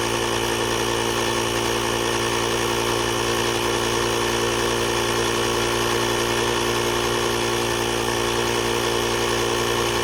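Portable jump starter's built-in electric air compressor running steadily, a constant motor hum.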